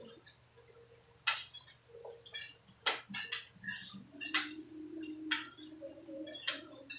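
Spoons and forks clinking against plates and a serving bowl during a meal, about six sharp clinks spaced a second or so apart, with a faint low hum in the middle.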